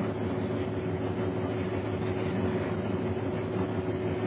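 Steady background noise with a constant hum.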